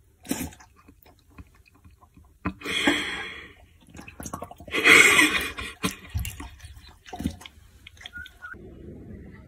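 A dog lapping and splashing water from a stainless steel bowl in a few separate bouts, the loudest two about three and five seconds in, with short pauses between.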